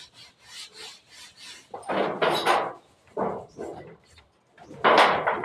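Wood being scraped or rasped by hand: a quick run of faint strokes, then several louder, rough scrapes.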